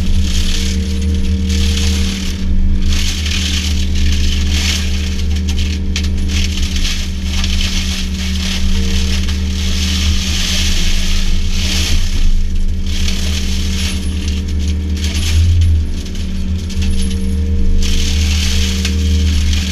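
Yanmar VIO50 mini excavator's diesel engine running steadily under load while its Berti hydraulic mulcher head shreds vegetation, with uneven surges of rattling, crackling debris.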